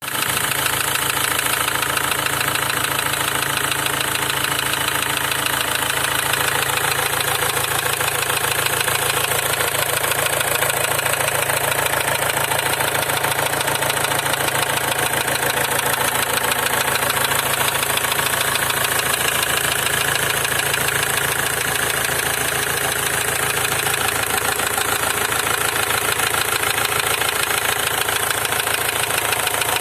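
Opel Y22DTH 2.2-litre four-cylinder turbodiesel running steadily at idle with a knock, the fault the recording is made to show.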